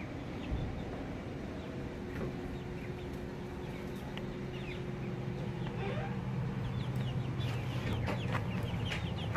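A flock of young chickens peeping, many short falling chirps that come more often in the second half, over a low steady hum that grows louder from about halfway.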